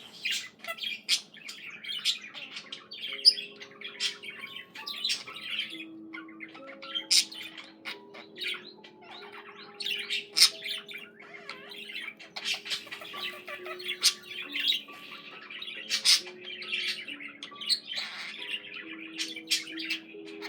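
Budgerigar chattering and warbling without a break, mixed with sharp clicks and squawks.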